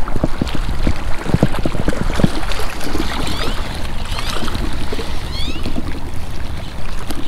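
Wind buffeting the microphone with a steady low rumble, broken by scattered knocks and clicks. A few short high chirps come in the middle.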